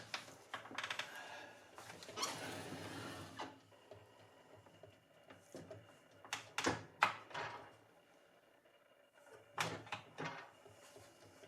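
Handling noises: a quick run of clicks about a second in, a scraping rush lasting about a second and a half, then a few separate knocks and thunks.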